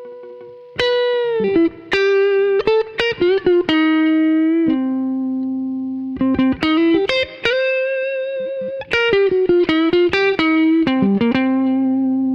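Electric guitar played through a DemonFx CK Compressor pedal: two single-note lead phrases of quick picked notes with slides and bends, each ending on a long held note that sustains with little fade, the second with vibrato.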